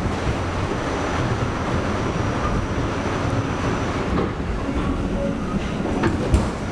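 New York City subway train running on the rails, a steady rumble with wheels clattering over the track. A single sharp knock near the end.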